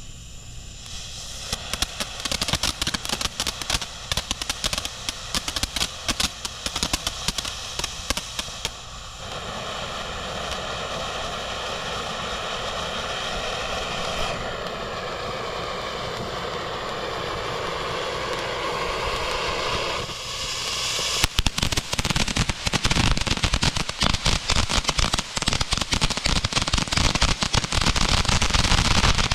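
A 200-gram consumer fountain firework (All Spark by Monkey Mania) burning. It crackles densely for the first several seconds, then sprays with a steady hiss from about 9 to 20 seconds in, then crackles densely again from about 21 seconds on.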